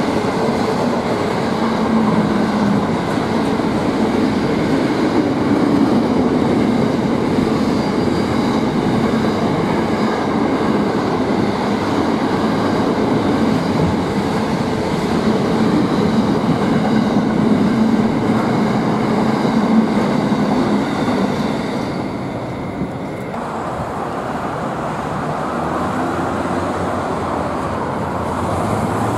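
Container freight train wagons rolling past on the rails, a loud steady run of wheel-on-rail noise. About 22 seconds in it gives way to a quieter, steady hum of road traffic.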